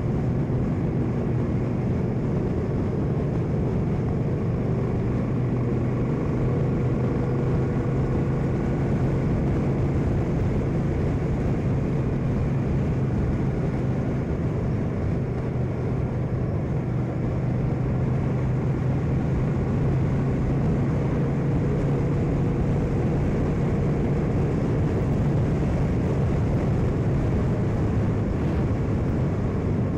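Cruiser motorcycle engine running at a steady road speed, heard from the rider's seat, with low wind rumble on the microphone.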